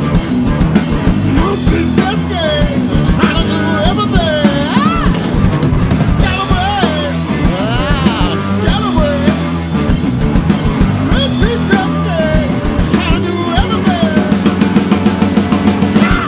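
Live rock band playing blues-rock, with drum kit, bass and a lead line that bends up and down in pitch. A fast run of drum hits comes near the end.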